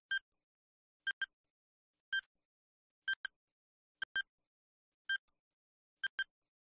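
Countdown timer sound effect: short electronic beeps about once a second, some a single pip and some a quick double pip, marking off the seconds of the answer countdown.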